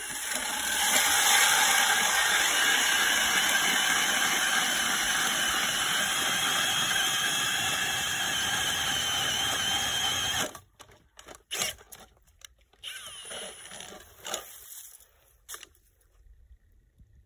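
Ridgid 750 inch-pound cordless hammer drill spinning a 6-inch hand ice auger down through about 13 inches of lake ice: a loud, steady whine over the noise of the blades cutting ice, stopping suddenly after about ten seconds. A few quieter knocks and scrapes follow as the auger is lifted out of the hole.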